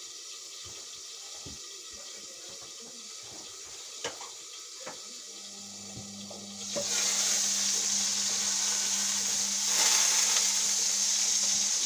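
Indesit washing machine taking in water: after a few faint clicks, a steady low hum starts about five seconds in, and a second later water rushes in with a loud, even hiss that keeps on.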